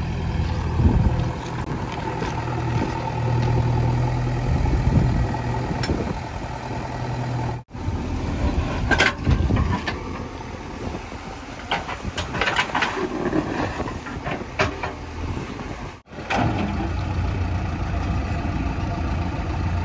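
JCB 3DX backhoe loader's diesel engine running steadily. In the middle stretch there are scrapes and knocks as the backhoe bucket digs into soil, grass and track ballast. The sound breaks off abruptly twice between stretches.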